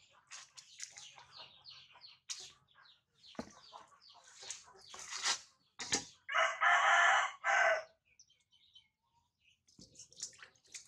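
A rooster crowing once, loudly, for about a second and a half starting about six seconds in. Before it there are light splashes and sloshing of water in a steel bowl as a baby monkey is washed.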